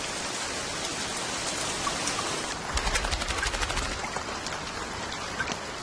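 Steady rain falling, an even hiss of drops on the ground and foliage, with a stretch of louder, heavier drops about three seconds in.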